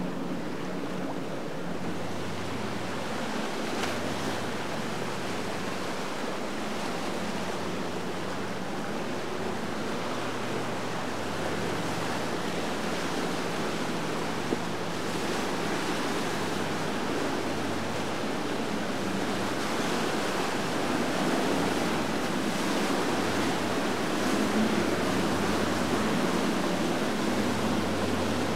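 Fast, turbulent tidal current rushing through a canal, with the steady hum of boats' outboard motors underneath; it grows louder over the last third as a small outboard boat crosses the current.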